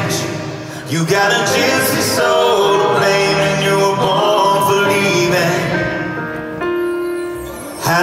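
Live country band playing, with a male lead singer singing through the PA, recorded from within the audience.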